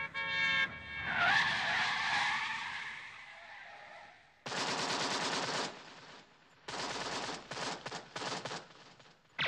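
Gangster-film sound effects: a car's tyres squeal in a skid for a few seconds, then machine-gun fire comes in one long burst and then several shorter bursts.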